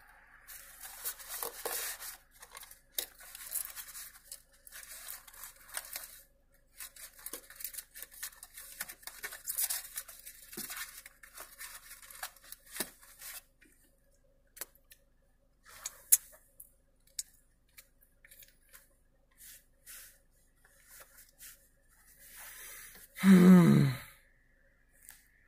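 Scratchy rustling and crackling right at the phone's microphone for about the first half, thinning to scattered faint clicks. Near the end comes one short, loud, low groan from a man's voice, falling in pitch.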